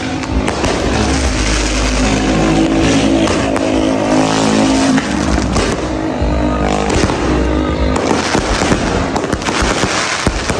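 New Year's Eve firecrackers and fireworks popping and crackling, the pops coming thicker toward the end, under a loud droning tone that rises in pitch about two-thirds of the way through.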